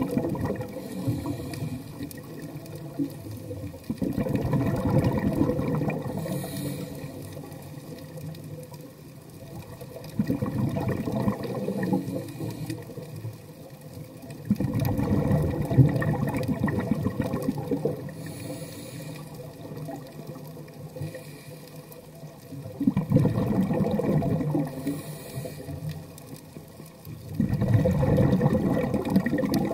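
Scuba diver breathing through a regulator, heard underwater through the camera housing: exhaled bubbles rush out in loud surges of two to three seconds, about six times, with a faint brief hiss of inhaling between some of them.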